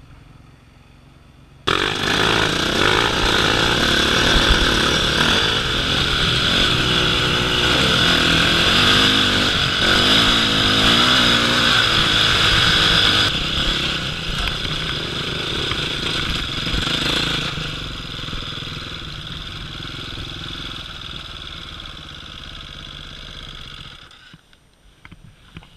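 KTM enduro dirt bike engine, heard close up, comes in suddenly about two seconds in and runs hard with the revs rising and falling as the bike climbs a dirt track. It eases off over the last several seconds and drops away shortly before the end.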